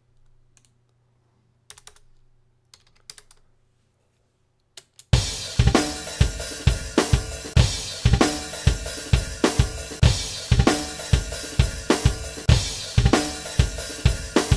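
A few faint mouse clicks, then about five seconds in a multitrack drum-kit recording starts playing back in a steady groove: kick, snare, hi-hat and cymbals. These are drum tracks that have just been quantized to the grid in Cubase.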